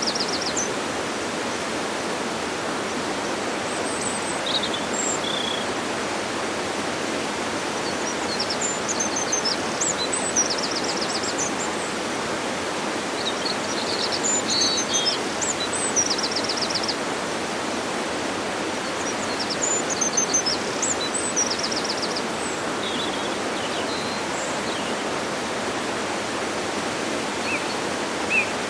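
Steady rushing of a waterfall, with birds chirping and giving short, fast trills above it every few seconds.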